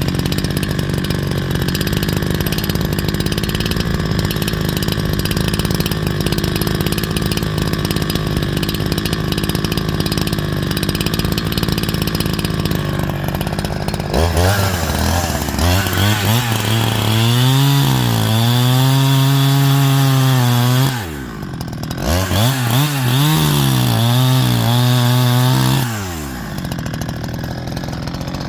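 A 70cc chainsaw with a 25-inch bar bucking a stringybark log. It runs at a steady pitch under load for about fourteen seconds, then its pitch wavers up and down as the load changes. It drops to idle about twenty-one seconds in, revs up again, and falls back to idle near the end.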